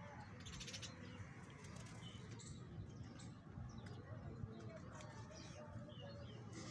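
Faint birdsong: scattered short chirps and calls over a low steady background hum.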